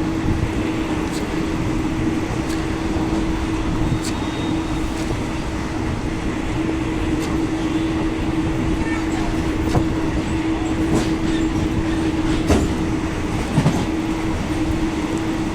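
Passenger train running, heard inside an open-window fan coach: a steady rumble of wheels on the track with a constant hum, and scattered clicks and knocks from the rails, two of them louder near the end.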